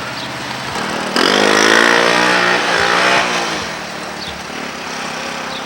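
Small single-cylinder engine of a three-wheeler ATV running, revved hard about a second in for two seconds, then winding back down to a lower running note.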